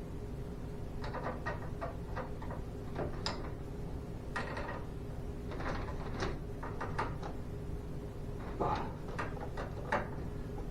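Irregular clicks, taps and clatters of hands and tools working on garage door torsion spring hardware, in small clusters a second or two apart, over a steady low hum.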